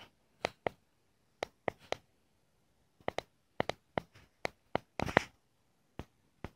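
A dozen or more short, irregular rustles and soft knocks as a small dog humps a plush teddy bear in a fabric dog bed, with a louder flurry about five seconds in.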